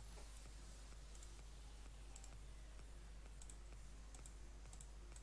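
Faint computer mouse clicks, scattered about once a second, over a low steady hum.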